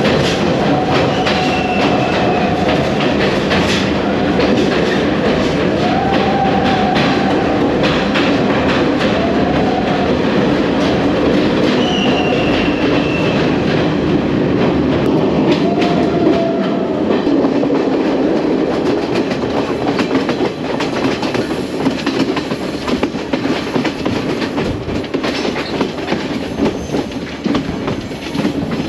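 Passenger train running along the track, its wheels clattering steadily over the rails. The noise eases and turns more uneven about two-thirds of the way through.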